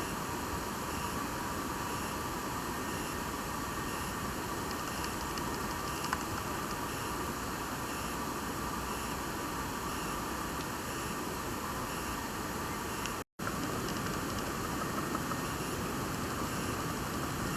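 A steady, even hiss of outdoor ambience with a faint thin high tone in it. The sound drops out completely for a split second about thirteen seconds in.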